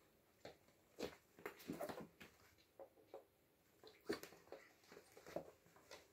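Faint, irregular scuffles and soft thumps of two kittens play-wrestling on a rug, their paws and bodies knocking against the mat. The sound comes in short scattered knocks, the loudest about a second in and about four seconds in.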